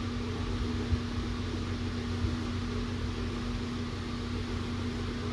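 Large electric room fan running: a steady hum with one constant low tone.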